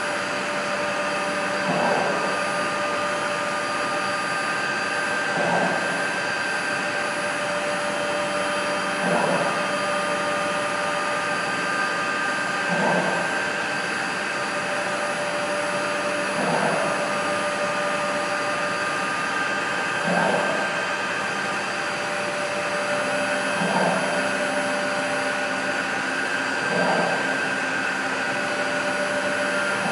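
CNC router running a G-code job under Mach3 control: a steady whir with a whine from the stepper motors, and a short swell about every three and a half seconds as the motion pattern repeats.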